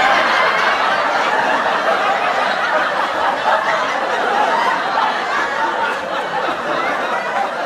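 Sitcom studio audience laughing together, a continuous laugh track from many people that eases off a little near the end.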